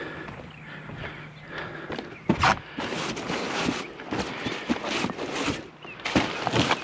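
Close rustling and clattering of discarded junk being handled and sorted through, starting about two seconds in and going on in irregular bursts. A low steady hum sounds under the first two seconds.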